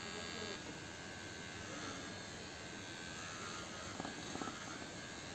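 Electric pet hair clipper humming steadily while a cat's fur is shaved. Its higher whine drops away about half a second in, and there are a few soft knocks about four seconds in.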